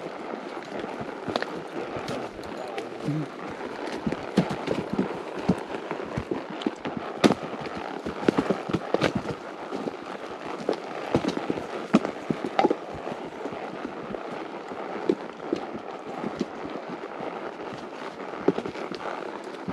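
Dry wood cracking and snapping in a quick, irregular run of sharp pops and cracks.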